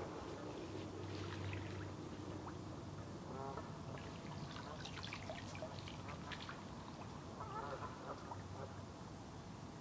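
Faint lake water sloshing and trickling, with small scattered splashes, as a large catfish is let out of a floating retention sling in the shallows.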